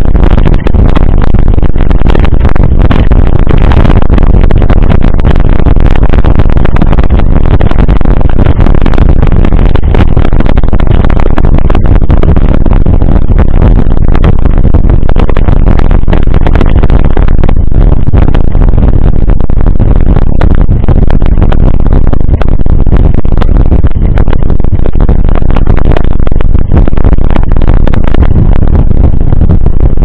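Loud, distorted wind rush and buffeting on a mountain bike's action-camera microphone as the bike rolls fast over a gravel road, with the tyres' crunch and many small knocks and rattles from the bike over the stones.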